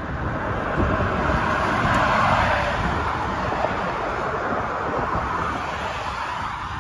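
Cargo van driving at road speed: steady road and wind noise that swells a little about two seconds in.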